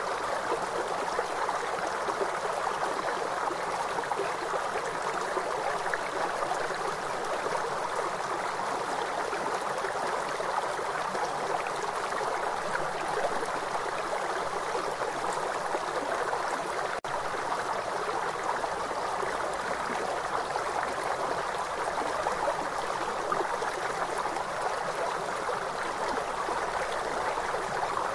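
River water rushing steadily, an even, unbroken wash of flowing-water noise. There is a split-second gap about two-thirds of the way through.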